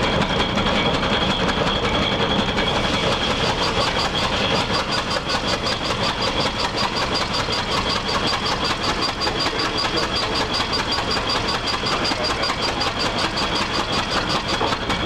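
1913 International Harvester Titan 45 hp tractor's throttle-governed engine running steadily under belt load driving a sawmill, its exhaust beats in an even rhythm of about five a second. A steady high-pitched whine runs behind it.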